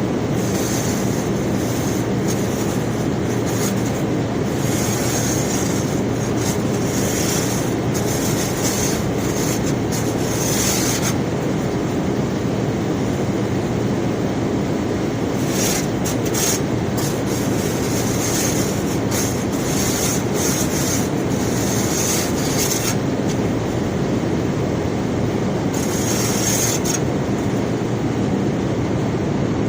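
Conveyor belt carrying rock, running with a steady loud rumble, with brief high squeals and scrapes coming and going over it.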